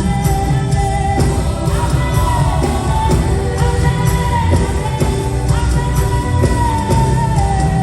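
Live worship music: a full band with heavy bass and a held, sliding sung melody line.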